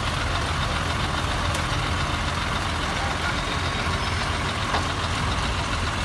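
Heavy vehicle's diesel engine running steadily, a low even rumble with no change in speed.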